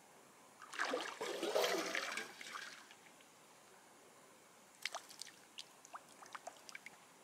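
Water streaming and splashing off a cooking pot as it is hauled up out of a lake on a cord, lasting about two seconds, followed a couple of seconds later by a scatter of drips falling from the pot back into the water.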